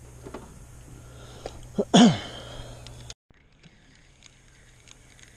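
A man's short, loud, breathy vocal burst about two seconds in, its pitch falling quickly. A little over a second later the steady background noise cuts off abruptly to a quieter hush with faint ticks.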